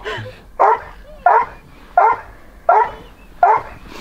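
A hunting hound barking over and over at an even pace, about three barks every two seconds.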